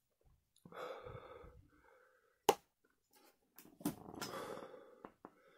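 A man breathing heavily with his mouth burning from chili heat: two long, heavy breaths, with a sharp click between them about two and a half seconds in and a few fainter clicks later.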